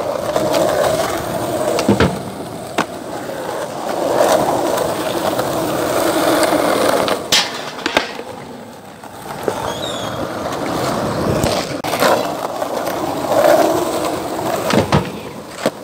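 Skateboard wheels rolling over rough concrete, the rolling swelling and easing as the skater pushes. Several sharp clacks of the board cut through it, the sounds of tricks being popped and landed, two close together about seven to eight seconds in.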